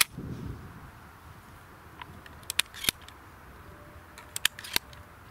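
Sharp metallic clicks from an Impala Plus semi-automatic shotgun being handled and loaded: one loud click at the start, then two quick groups of about three clicks.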